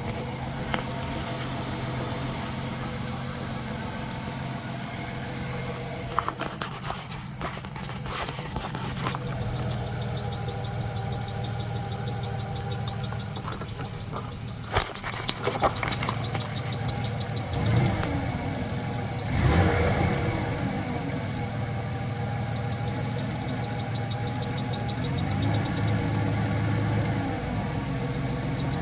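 Ford Ranger 3.0 V6 engine idling with a rapid, steady chirping squeak, briefly revved about two-thirds of the way in. The chirp comes from worn bushings in a failing camshaft synchronizer letting its inner shaft wobble and rub, the owner's diagnosis after ruling out the belt, tensioner and idler pulley; a few sharp clicks come in the first half.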